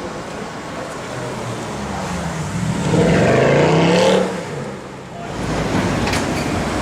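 Mercedes-Benz C63 AMG's V8 exhaust as the car accelerates hard, its note rising in pitch and loudest about three to four seconds in, then dropping off suddenly. A lower, steadier engine rumble follows near the end.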